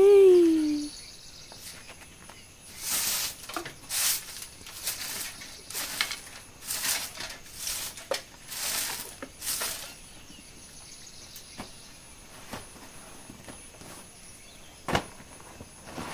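A woven floor mat being shaken out, about eight swishing flaps roughly a second apart, then a single knock near the end. It opens with a brief loud cry that rises and falls in pitch.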